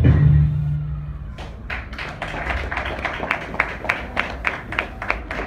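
Song music ends on a held low note, then an audience claps: distinct separate claps, about three a second.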